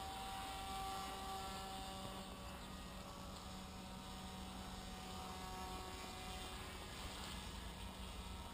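Electric motor and propeller of an RC paramotor model droning overhead, a steady hum that fades a little and swells again as it flies.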